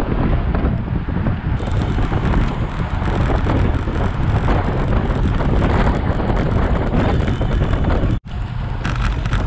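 Wind buffeting the microphone of a camera mounted on a moving road bike: a loud, steady, low rumble of wind noise. It cuts out completely for an instant about eight seconds in.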